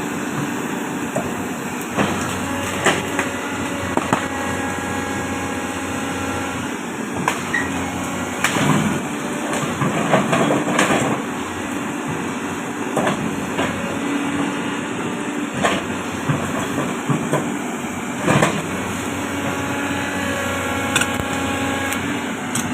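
Caterpillar 320D long-arm excavator working, its diesel engine running under load and its hydraulics whining off and on, with repeated sharp knocks and cracks throughout.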